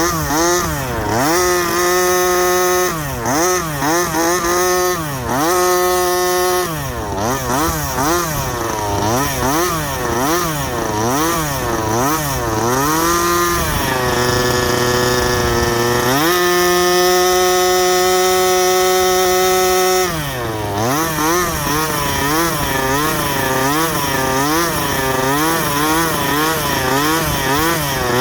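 Rovan Baja 32cc gasoline RC car's small two-stroke engine running, its pitch rising and falling again and again with the throttle. It is held at high revs for about four seconds past the middle, then blipped up and down quickly again.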